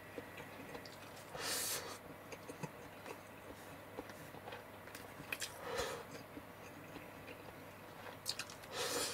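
Person eating: quiet chewing with small clicks, and three short breathy swishes about 1.5, 6 and 9 seconds in.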